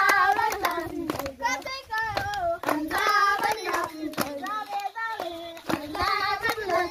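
Girls and children singing a song together while clapping their hands in a steady beat, about two claps a second.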